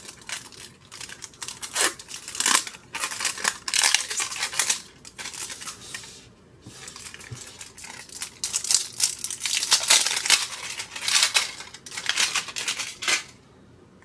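Wrapping on a pack of trading cards being torn open and crinkled in irregular bursts, stopping near the end.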